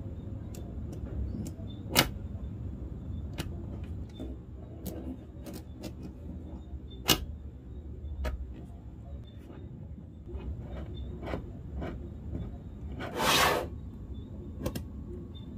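Small magnetic balls clicking against one another as they are handled and placed, many light clicks with sharp snaps about 2 and 7 seconds in. A brief rattle comes about 13 seconds in, over a low steady hum.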